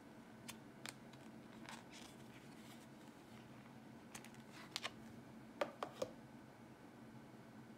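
A smartphone and its clear plastic case being handled: scattered small clicks and scrapes, with a quick run of sharper clicks about five to six seconds in.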